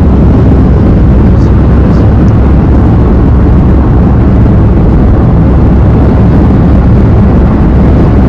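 Loud, steady low rumble of a car driving along a city road, heard from inside the car: road and wind noise with no clear engine tone.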